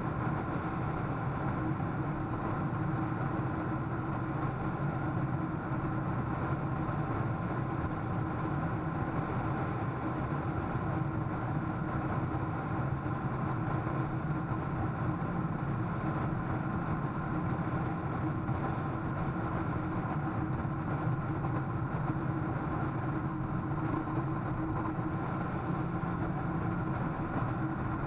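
Car engine and road noise heard inside the cabin while driving at a steady speed: an unchanging hum with a few constant tones.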